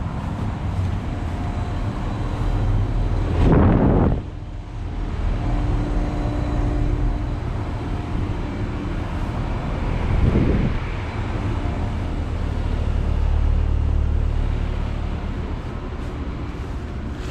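Outdoor Carrier heat pump condensing units running: a steady low compressor hum with the rush of the condenser fans and faint steady tones. Two short, loud bursts of rushing noise cut across it, about three and a half seconds in and again about ten seconds in.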